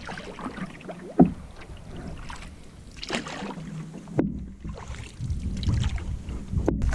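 Canoe paddle working lake water: intermittent splashes and drips from the strokes, the sharpest about a second in and again around four seconds in.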